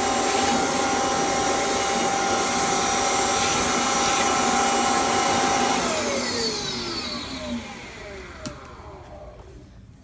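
Kirby Generation 3 upright vacuum's motor running with a steady whine. About six seconds in it is switched off, and its pitch falls as the fan winds down toward a stop.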